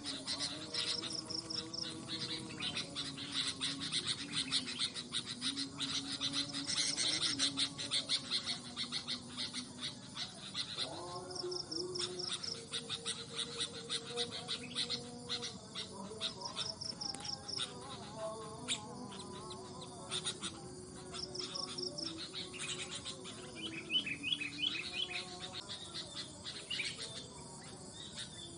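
Songbirds, bulbuls among them, chirping and calling in the trees over a bed of insect noise. Short high insect trills, each about a second long, break in every several seconds.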